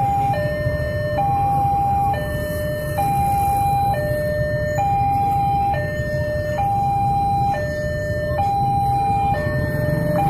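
Railway level-crossing warning alarm sounding a steady two-tone signal, a higher tone then a lower one, each held just under a second and repeating over and over, the signal that a train is approaching and the crossing is closed. Beneath it, motorcycle engines run at idle in the waiting queue.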